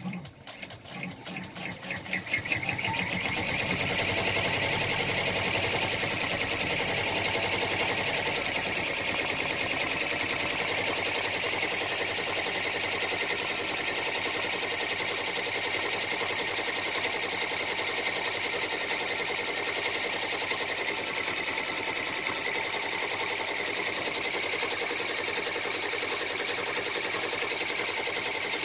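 Baby Lock Enterprise ten-needle embroidery machine stitching. It speeds up over the first two or three seconds from separate stitch strokes to a fast, steady run of rapid stitching.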